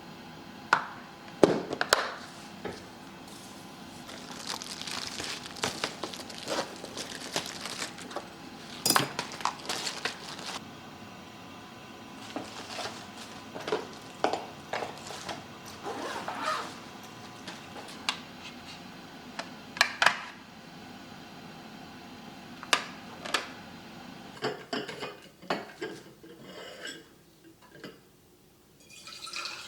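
Irregular clinks and knocks of hard objects being handled, a dozen or more scattered through, some ringing briefly; it goes quieter near the end.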